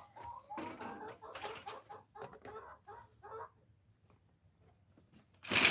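Backyard hens clucking in a run of short calls, falling quiet after about three and a half seconds. A loud rustling noise starts just before the end.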